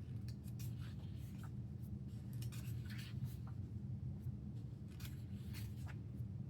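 Pages of an album's photo book being turned and handled: irregular soft rustles and swishes of thin paper.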